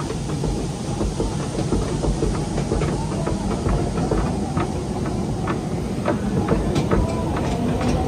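Timber Mountain Log Ride's log flume boat in motion: a steady low rumble with irregular clacks and knocks from the ride.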